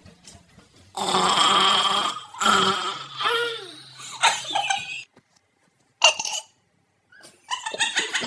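A long burp about a second in, pitched up high by a chipmunk effect, followed by bursts of pitched-up laughter.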